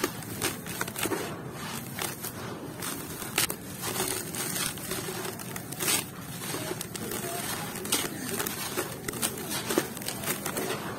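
Dry sand-and-cement clumps crushed and crumbled between bare hands, the loose grains spilling back into the tub: a steady gritty hiss broken by many irregular sharp crackles.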